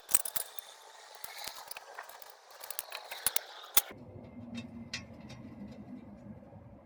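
Metal hand tools clinking and scraping against wheel hub and suspension parts, with several sharp clanks in the first four seconds. About four seconds in, the sound gives way abruptly to a low steady rumble with a few light ticks.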